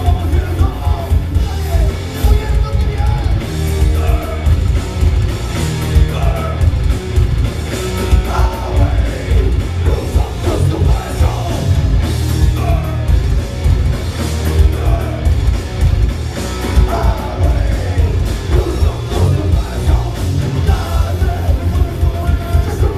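Live metal band playing loud: electric guitars, bass and drum kit, with a singer's voice over them.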